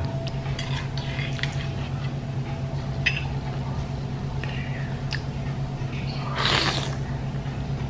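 Metal fork and spoon clicking and scraping against a ceramic bowl of noodles and meatballs: a few light, scattered clinks, over a steady low hum. A brief louder rush of noise comes near the end as a forkful of noodles goes into the mouth.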